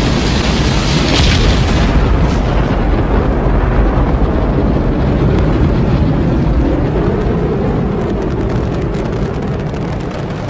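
Rocket engines at liftoff: a loud, dense rumbling noise that starts abruptly, holds steady and eases off slightly near the end, with some crackle.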